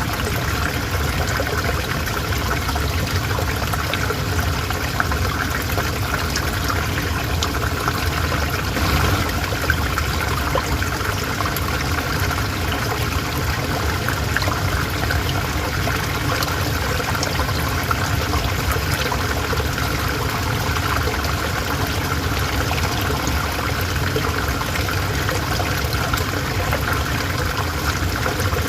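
River water flowing steadily, a constant rushing babble with many small splashes and trickles.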